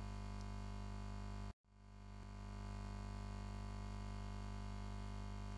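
Steady electrical mains hum in the recording. It cuts out suddenly about a second and a half in, then fades back up over the next second.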